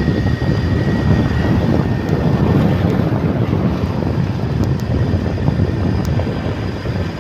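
Steady low rumble of a vehicle on the move.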